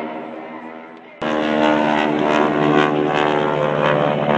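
Propeller aircraft engines droning steadily. The drone fades over the first second, then cuts suddenly to a louder, steady drone.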